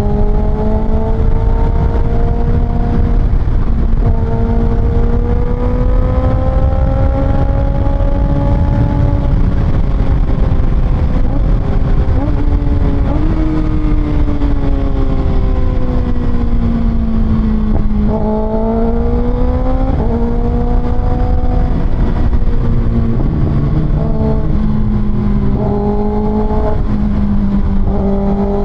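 Kawasaki ZX-6R's 636cc inline-four through an Austin Racing exhaust, riding on the road: the engine note rises and falls with the throttle, and the pitch breaks and jumps several times in the second half as the gears change. Heavy wind rumble on the microphone runs underneath.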